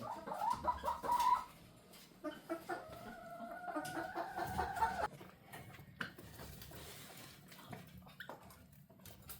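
Chickens calling: a drawn-out, pulsing call in the first second and a half, then a longer one from about two to five seconds in, followed by faint scattered clicks.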